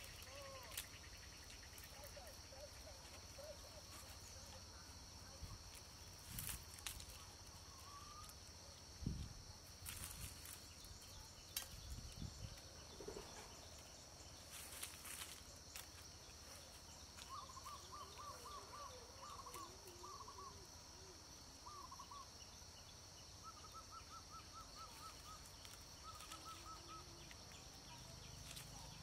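Quiet outdoor ambience: a steady high-pitched insect drone, with a bird calling in short rapid trills in the second half. There are occasional soft rustles and clicks as strips of wild vine are handled and laid out for weaving.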